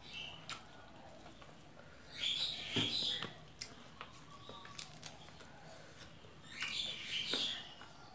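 Close-up eating sounds: hands rustling through a pile of boiled cassava leaves on a banana-leaf plate, with wet chewing and small mouth clicks. There are two short bursts, about two seconds in and again near seven seconds.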